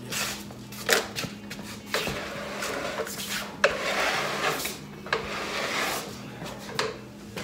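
Wooden pallet loaded with an engine block being shoved and turned on a concrete floor: wood scraping and grating on concrete, with several sharp knocks, the loudest about halfway through.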